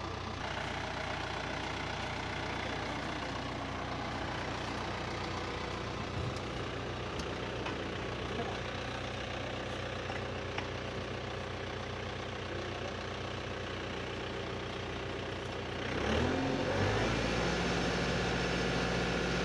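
Tractor engine running at a steady idle, driving the hydraulics of a tractor-mounted stake driver. About sixteen seconds in, the engine note dips and then runs louder as the hydraulic stake driver is worked.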